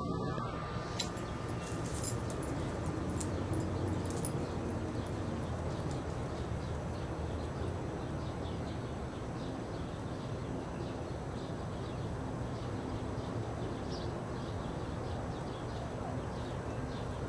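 Steady outdoor background noise with a low rumble, and a few faint sharp high clicks scattered through the first few seconds and again near the end.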